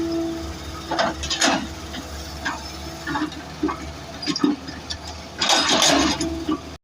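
Engine running steadily, with scattered knocks and clatter over it and a louder burst of clatter near the end; everything cuts off abruptly just before the end.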